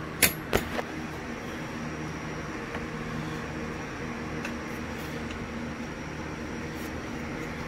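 Two sharp clicks of tools or metal parts being handled near the start, then a steady, even machine hum.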